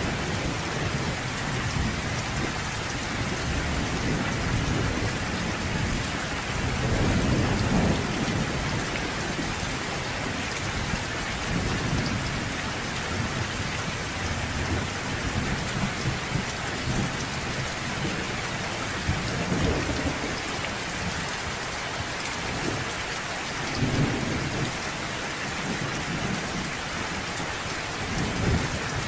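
Steady heavy rain hissing, with low rolls of thunder rumbling up and fading several times, strongest about seven seconds in and again around twenty-four seconds.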